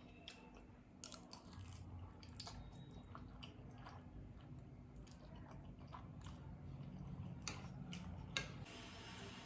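Close-up chewing of Samyang 2x spicy Buldak noodles: soft, wet mouth sounds with scattered small clicks, and one sharper click near the end.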